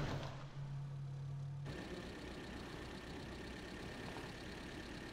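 A car drives away and its engine hum fades. About two seconds in the sound cuts to steady engine and road noise heard from inside the car's cabin.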